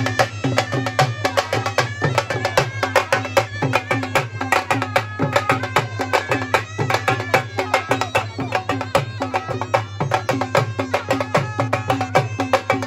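Live procession band: reed wind instruments play a wavering, bending melody over fast, sharp, continuous drumming.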